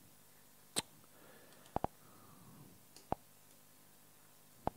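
A few sharp taps of a pen on the writing surface as a word is written by hand: one about a second in, a quick pair near two seconds, another past three seconds and one just before the end, over faint room hiss.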